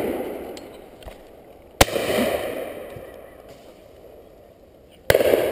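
Two shotgun shots about three seconds apart. Each sharp crack is followed by an echo that rolls away and fades over a second or two.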